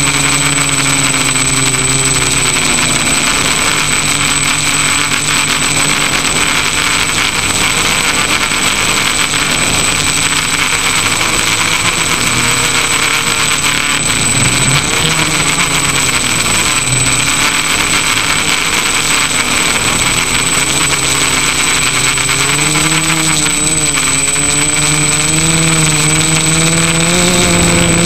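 Electric motors and propellers of an FPV radio-controlled aircraft running in flight, heard from the onboard camera: a whirring whose pitch rises and falls with the throttle over a steady rush of wind noise, with a thin steady high whine throughout. The pitch climbs near the end.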